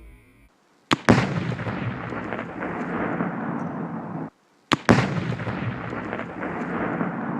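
A rifle shot cracks, and a split second later 12 pounds of Tannerite detonates in a huge boom that rumbles and echoes on for about three seconds. After an abrupt cut to silence, the same shot and blast are heard again about five seconds in.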